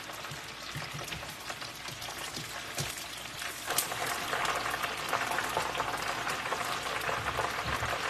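Unbreaded chicken wings deep-frying in a pot of oil: a steady crackling sizzle that grows louder a little before the middle, with a single sharp click near the middle.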